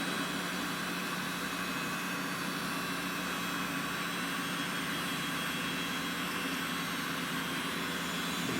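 Cooling fans of an early-2000s AMD Athlon XP desktop computer running flat out as it boots after years unused: a steady loud whir with a few fixed humming tones over an airy hiss, loud enough that it "sounds like it's going to take off".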